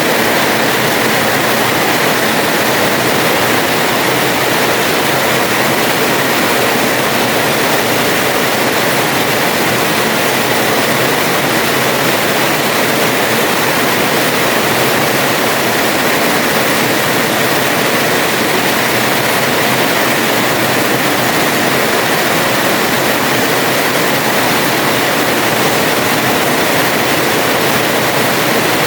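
Heavy rain pouring onto a house terrace: a dense, even hiss that holds steady throughout, with no thunder.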